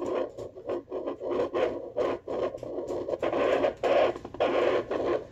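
Handheld fetal doppler's speaker giving scratchy, whooshing static in uneven surges as its probe is pressed and moved over a pregnant dog's belly, searching for the puppies' heartbeats.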